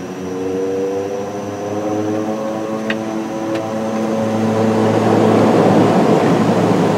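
Saab 2000's two Rolls-Royce AE 2100 turboprop engines and propellers heard from the cockpit, spooling up for take-off: several steady propeller tones under a faint high whine, growing louder and rougher about four to five seconds in as power comes up. Two light clicks about three seconds in.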